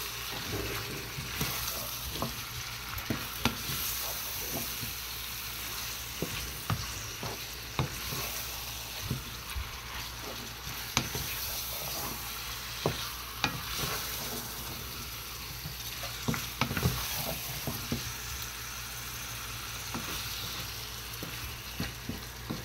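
Beef pieces and browned onions sizzling in hot oil in a nonstick pan, stirred with a wooden spatula that knocks and scrapes against the pan at irregular moments.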